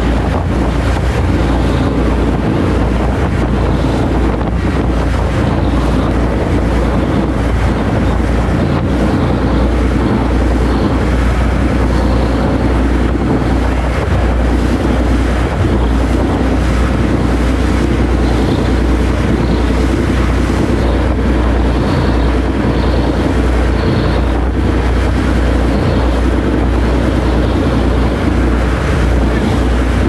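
Phi Phi Cruiser passenger ferry under way: a steady, deep engine hum with water rushing past the hull. Wind buffets the microphone throughout.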